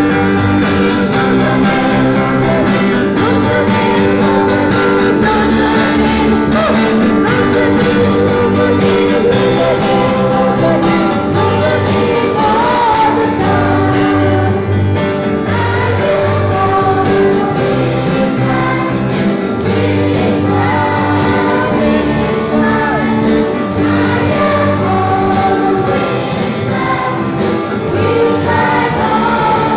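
A group of children singing a song together, over instrumental backing with a repeating bass line.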